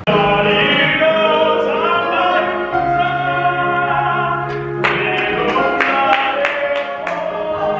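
A young man singing solo in long held notes, with an electronic keyboard accompanying.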